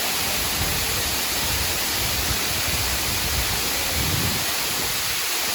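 Kanto Lampo waterfall's falling water: a steady, loud rush of noise, with a low rumble that comes and goes underneath.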